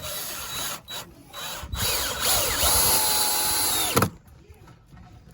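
Power drill driving a screw: two short bursts, then a longer run in which the motor speeds up and holds a steady whine before stopping abruptly about four seconds in.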